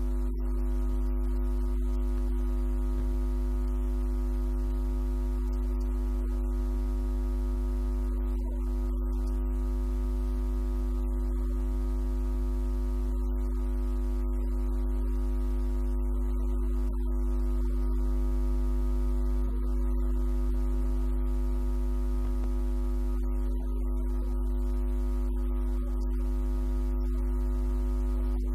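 A loud, steady hum made of several fixed tones, with a strong low hum beneath, unchanging throughout; no speech can be made out over it.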